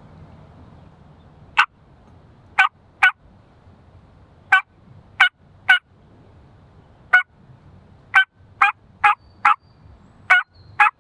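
Hen turkey yelps made on a turkey hunter's mouth call: thirteen short, sharp notes in runs of one to four, loud and close, with a spitty, wet edge.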